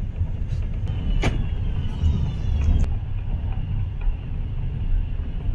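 Passenger train running, heard from inside the carriage: a steady low rumble, with a sharp click about a second in and a faint high whine just after two seconds in.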